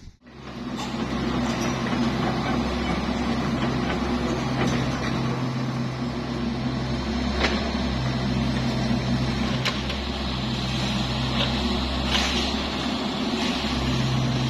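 Kubota U50 mini excavator's diesel engine running steadily under working load. The drone's lower tone comes and goes every few seconds as the load changes, with a few sharp clicks or knocks.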